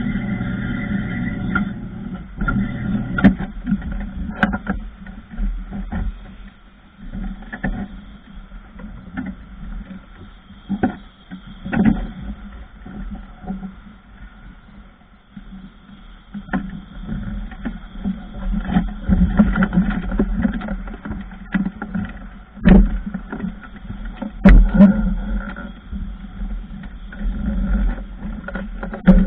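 Knocks and clunks of work on a suspended work platform over a low rumble, coming irregularly. A steady hum runs under the first couple of seconds and then fades.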